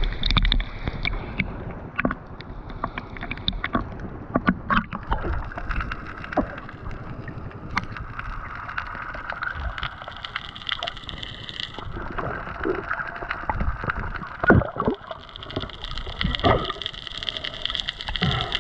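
Sea water sloshing and gurgling around a spearfisher's camera, with scattered irregular clicks and knocks.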